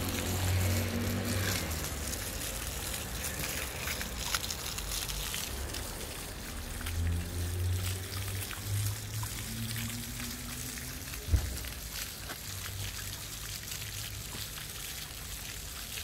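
Small ground-level fountain jets spurting up and splashing back onto wet paving, a steady patter and spatter of falling water. A single sharp knock comes about eleven seconds in.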